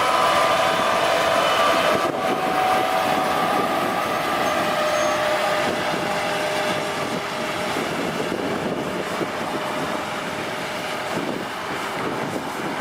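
Diesel engine of a heavy road-construction machine running steadily. A whine on top slowly drops in pitch over the first few seconds, and the sound gradually gets quieter.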